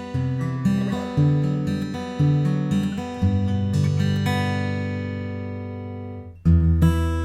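Gibson J-200 Art Deco jumbo acoustic guitar, with a spruce top and flame maple back and sides, being strummed. A few chord strums are followed by a chord left ringing and slowly fading for about three seconds. Strumming starts again sharply near the end.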